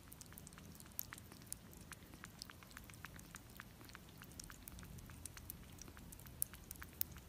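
Kitten lapping and suckling at a feeding syringe: faint, quick wet mouth clicks, a few a second and irregular, with two slightly sharper ones near the end.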